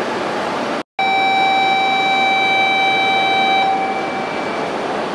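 A steady electronic warning beep on a Shinkansen platform sounds for nearly three seconds after a brief dropout about a second in, then dies away in the station's echo, over steady train and platform noise.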